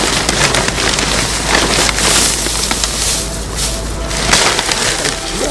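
Dry timothy hay rustling and crackling as it is shaken out of a paper bag into a wooden hive box, with the bag's paper crinkling.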